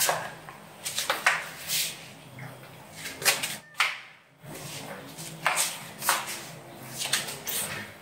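House cats meowing several times in short calls.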